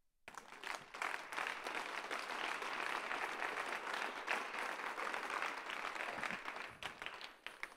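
Congregation applauding, a dense patter of many hands clapping that dies away near the end.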